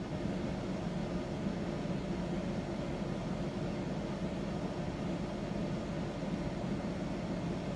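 Steady low background hum of room noise, even throughout with no distinct events.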